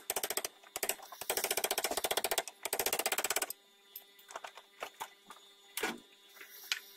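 Ratchet wrench clicking rapidly in several runs as the Torx T50 clamp bolt of the Mercedes Vito's steering universal joint is unscrewed, then a few scattered metallic knocks, the loudest about six seconds in, as the joint is worked off the steering rack shaft.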